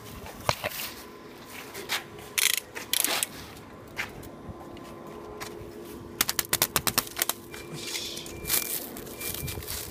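Plastic stretch wrap being pulled off its roll and wound around potato containers: crackling, scraping and clicking, with a quick run of clicks about six seconds in, over a steady low hum.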